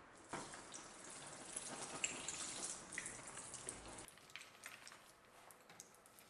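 Red-hot steel cleaver blade quenched in a bucket of oil: the oil sizzles and crackles with scattered pops, fainter after about four seconds.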